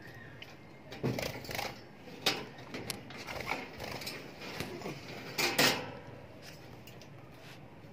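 Irregular knocks and rattles on a wire-mesh birdcage and its wooden nest box, a few single clatters and a louder double one about five and a half seconds in, after which they stop.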